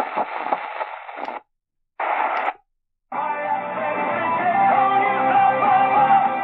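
Sony ICF-SW7600GR portable radio being tuned up the AM band: two short snatches of station audio, each cut off into silence as the tuning steps on, then about three seconds in a station playing guitar music comes in and plays on. The sound is thin, with nothing above the narrow AM audio band.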